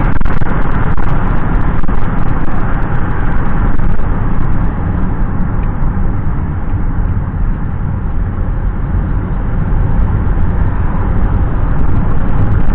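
Steady road and engine noise of a moving car, heard from inside the cabin. It eases a little in the middle and grows again near the end.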